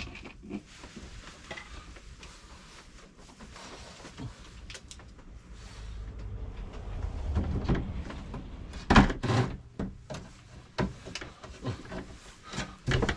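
Knocks and clunks of a cordless drill-driver and a plywood shelf board being handled. A low, dull noise builds through the middle, followed by a string of sharp knocks in the second half, the loudest just after the middle.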